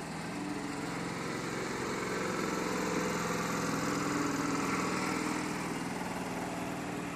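Tokyu 8000 series electric commuter train pulling away, its traction motors humming with several steady tones over the rumble of the wheels on the rails. It grows louder to a peak about four seconds in, then eases a little as the cars roll past.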